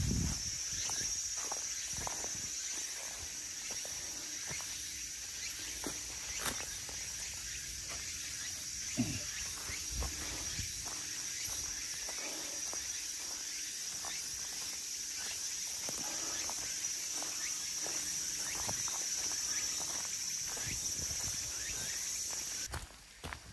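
Footsteps walking on a hiking trail, with a steady high-pitched insect drone behind them. The insect sound stops suddenly near the end.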